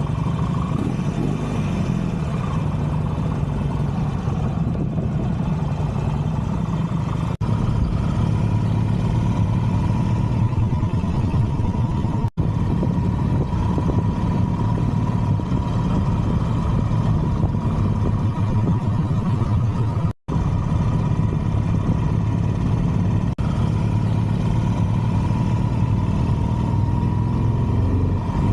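Harley-Davidson Street Glide's V-twin engine running steadily while riding at a constant pace. The sound cuts out for an instant a few times.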